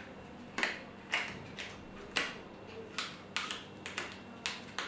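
Scissors snipping through the finger extensions of a latex glove: a series of short, sharp snips at an uneven pace, about two a second.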